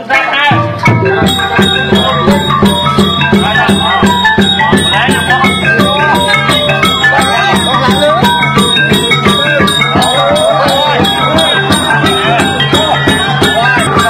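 Music with a fast, steady beat and rattling shaker-like percussion over stepped melody notes, starting about half a second in.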